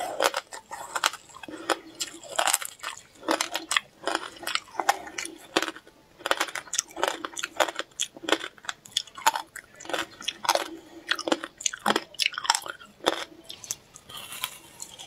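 A person biting and chewing a block of ice coated with passion fruit and sesame seeds: repeated sharp, crackling crunches, with short gaps.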